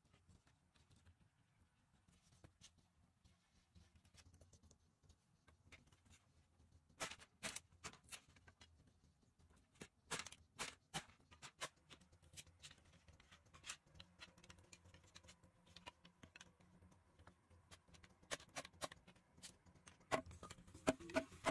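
Faint, scattered clicks and light knocks of bamboo sticks being handled and chopped with a hand tool, some coming in quick clusters of taps. A ticking background music track comes in near the end.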